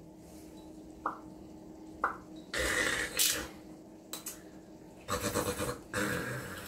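Metal screw cap of a green glass soju bottle being twisted open: two light clicks, then two bouts of scratchy crackling as the cap is forced round.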